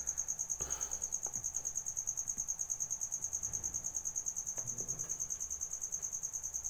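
A continuous, high-pitched, rapidly pulsing trill of an insect, most likely a cricket, with a faint low hum beneath it.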